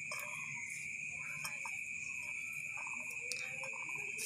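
Crickets trilling steadily in the background, with faint rustling and light ticks of basil leaves being picked up by hand.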